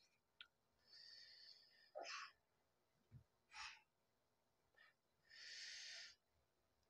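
Near silence, broken by a few faint breaths through the mouth or nose from a man enduring the burn of an extremely hot chili chip; the longest breath comes near the end.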